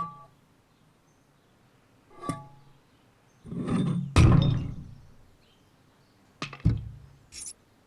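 Cartoon sound effects: a short pitched tap, then a louder soft thump with rustling, then a couple of sharp knocks with a dull thud.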